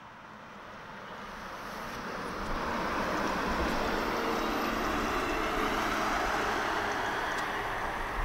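Boeing 777 jet engines running at taxi power: an even rumble and hiss that grows louder over the first three seconds as the airliner taxis closer, then holds steady.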